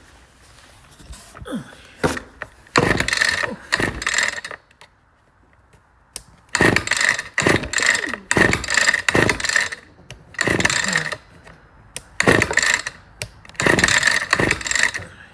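Small two-stroke power-tool engine being pull-started over and over: about half a dozen rough cord pulls, each a second or so long, with a short pause about a third of the way in. The engine cranks but does not catch.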